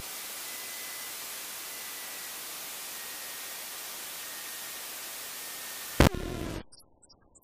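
Steady radio static hiss on the aircraft's headset audio feed, with a faint high whistle slowly drifting down in pitch; it ends with a click about six seconds in, after which the feed goes nearly silent.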